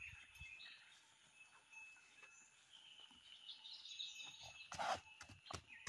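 Faint clinking of a small bell on a grazing calf's neck collar, with a few sharper clinks about five seconds in.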